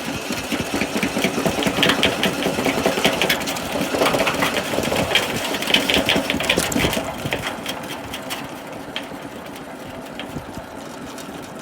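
Power drill driving a converted hand-crank honey extractor, the frame basket spinning with a fast, even mechanical rattle. It eases off and gets quieter about seven to eight seconds in.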